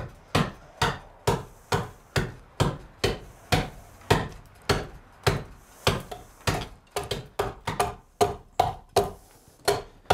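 Axe chopping into a wooden ox-yoke beam, steady strikes about two a second, cutting across the grain to hew out the curve of the yoke.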